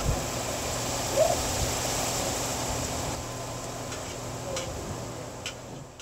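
Chicken tocino sizzling in oil in a nonstick frying pan over low-medium heat, a steady hiss with a few small pops, fading out near the end.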